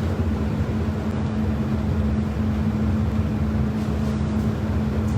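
Steady low mechanical hum with one constant tone, the running equipment of a restaurant kitchen.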